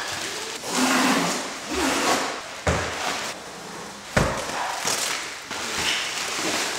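Plastic wrapping crinkling and rustling as sofa sections are unwrapped, with two dull thuds of heavy furniture pieces set down on a hard floor, about two and a half and four seconds in.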